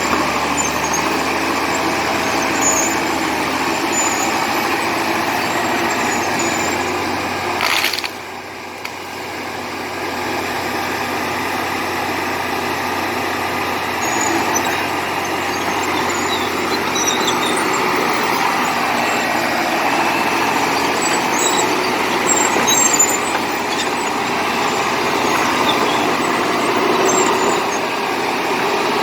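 Komatsu D70LE crawler bulldozer's diesel engine running under load while pushing clay. About eight seconds in the sound drops off suddenly, then builds back up over the next couple of seconds.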